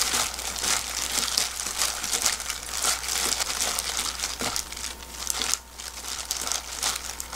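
A hand in a thin plastic food-prep glove tossing and squeezing seasoned boiled soybean sprouts in a glass bowl: continuous crinkling of the glove with the wet rustle of the sprouts, easing off briefly about five and a half seconds in.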